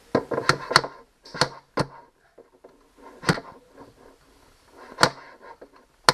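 A small hammer tapping, a series of sharp knocks spaced irregularly, as electrical wire is fastened against the wall.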